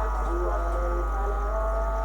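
WAP-7 electric locomotive's air horn sounding a held blast of several tones together, the tones shifting in pitch.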